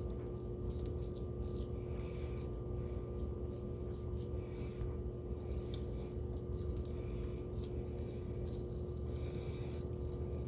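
Faint, irregular crackling and squishing of a crumbly cornstarch-and-dish-soap dough being kneaded between the hands, the mixture still a little too wet. A steady hum runs underneath.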